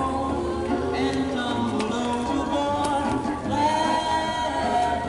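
Vocal music: singing with long held notes that move from pitch to pitch.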